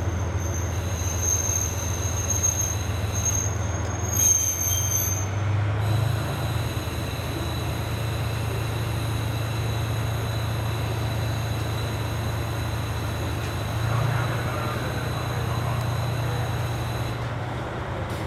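KiHa 40 series diesel railcar pulling in and stopping, with a high-pitched squeal as it brakes for the first four seconds or so. After that comes a steady low diesel engine hum as it stands at the platform.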